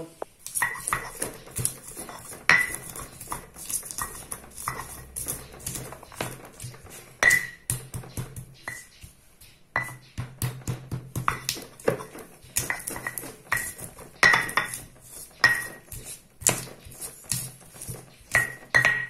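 Stone pestle (ulekan) pounding and crushing shallots, garlic, candlenuts and chillies in a stone mortar (cobek). It makes an irregular run of sharp stone-on-stone knocks, several a second, some with a short high ring.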